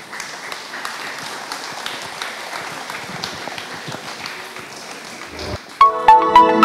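Audience applauding, a dense patter of many hands clapping after the performers bow. Near the end the clapping gives way to music that starts abruptly.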